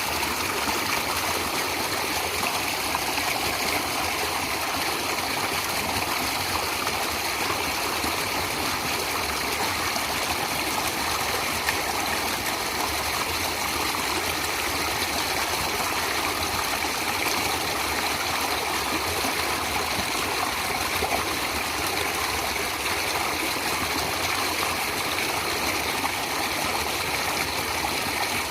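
Natural running water flowing steadily, an even rushing sound with no breaks or changes.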